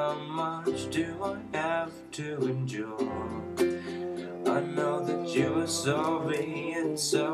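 Background music: the instrumental passage of an acoustic song, plucked and strummed strings carrying a melody over a bass line.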